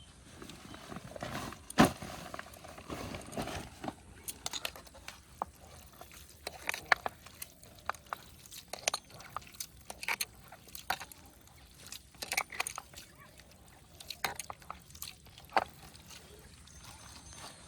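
A wet homemade fish-bait mixture being worked in a container: irregular small wet squelches, drips and clicks, with one sharper knock about two seconds in.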